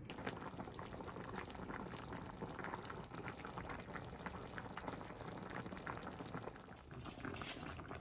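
Curry hot-pot broth bubbling at a simmer in a cast-iron pot: a faint, steady crackle of small bubbles.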